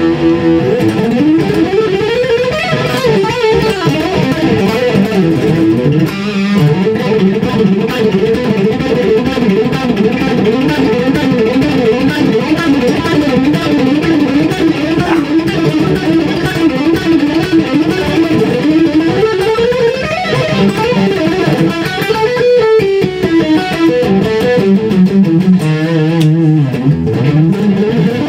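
Amplified Gretsch hollow-body electric guitar played fingerstyle, picked bass notes moving under a melody line, with a steady hiss in the recording.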